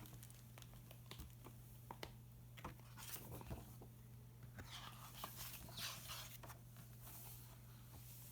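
Faint paper rustling and soft scattered clicks as the book's pages are handled, over a steady low hum.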